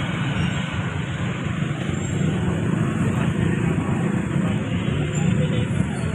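Steady low rumble of road traffic mixed with general room noise, with no distinct single event.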